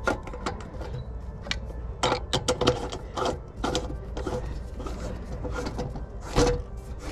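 Irregular clicks and knocks from hand-tool work on heavy service-entrance conductors.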